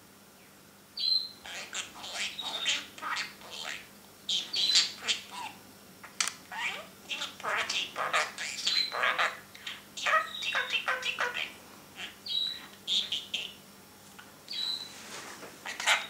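Pet budgerigar chattering: a rapid, unbroken run of squeaky warbles, chirps and clicks, the budgie's 'talking', starting about a second in.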